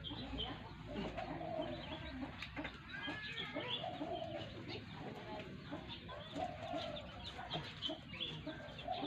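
Juvenile long-tailed shrike (pentet) and other birds calling: many short chirps and quick sliding notes, over a lower call that repeats about once a second.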